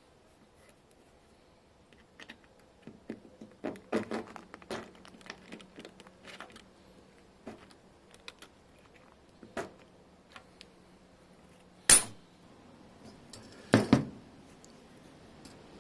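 Metal tools and parts being handled: scattered clinks and knocks, with a sharp metallic clack about twelve seconds in and another near fourteen seconds.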